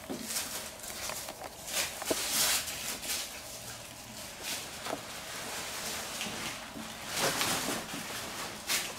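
Rustling of a barber's cape being taken off, in several short noisy bursts with small handling clicks between them.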